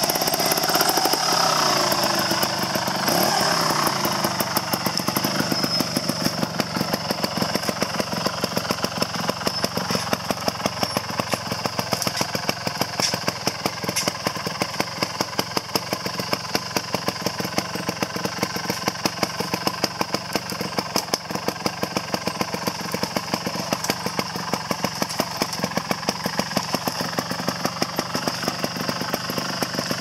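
Sherco trials motorcycle engine idling with an even, rapid pulse while the bike is walked downhill. It is briefly given a little throttle in the first few seconds, then settles to a steady idle.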